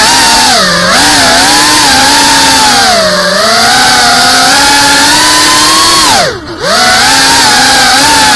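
Brushless motors and propellers of a GEPRC FPV drone, heard close up through its onboard camera: a loud whine whose pitch rises and falls with the throttle. About six seconds in the throttle is cut briefly, the whine dropping steeply in pitch and level, then it spins back up.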